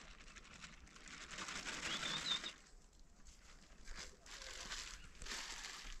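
Faint outdoor rustling and crinkling, with one short bird chirp a little after two seconds in.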